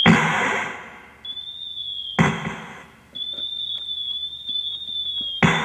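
Fireworks sound effect played on a Yamaha keyboard: a high, slightly wavering whistle, then a bang that trails off over about a second, heard three times.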